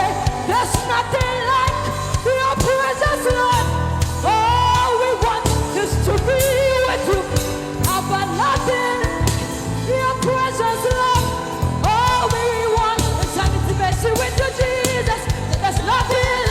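Gospel worship song: singing with vibrato over bass and a steady drum beat.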